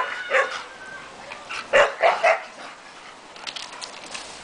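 A dog barking and yelping in about five short, loud calls over the first two and a half seconds, then falling quiet.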